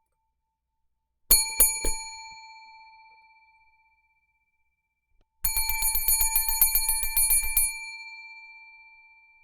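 Desk service bell banged hard and angrily: three quick dings about a second in, then a frantic run of about twenty rapid strikes lasting two seconds. The ring dies away slowly after each burst.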